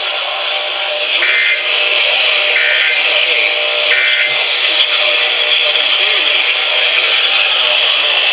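Three short Emergency Alert System SAME data bursts, shrill buzzing tones evenly spaced about a second and a half apart, over loud radio static hiss with a faint voice or music behind it.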